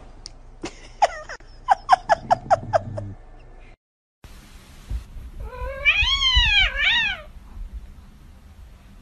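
A cat gives a quick run of about eight short meows, then, after a break, one long drawn-out meow that rises and falls, ending in a second shorter meow.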